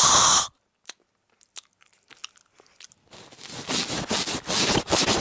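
A short loud breathy burst, then close-up chewing and crunching with the mouth right at the microphone. It becomes a dense run of crackles from about three seconds in.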